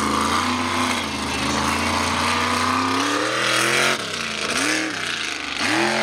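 Mega truck's engine at full throttle, holding steady and then climbing in pitch, cut back sharply about four seconds in, then revved up and down twice.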